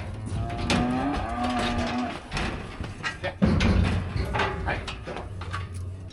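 One of the cattle bawls once for over a second, amid repeated metal clanks and rattles of a cattle chute and its gates.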